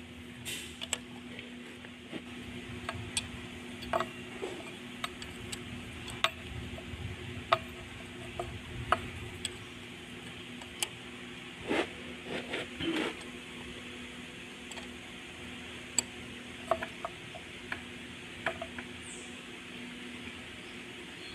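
Steel spanner clicking and clinking as it works the mounting nuts of a Delphi fuel injection pump on a Perkins four-cylinder diesel, a step in setting the pump's injection timing. The ticks come singly and irregularly, with a cluster a little past the middle, over a steady low hum.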